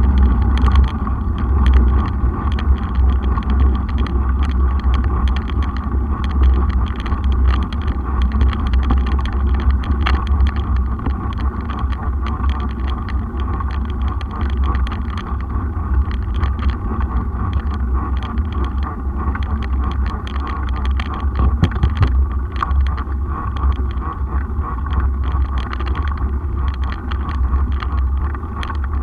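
Mountain bike rolling over brick paving, heard from a camera mounted on the bike: a steady low rumble of wind on the microphone mixed with tyre noise, and frequent small rattling clicks from the bike.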